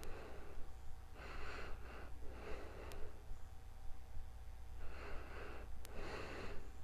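A sleeping person's heavy, noisy breathing: two full breaths in and out, each a rush of air, over a steady low hum.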